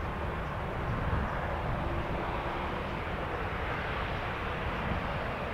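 Airbus A320's jet engines running steadily as the airliner rolls slowly along the runway, a continuous even engine noise with no sudden changes.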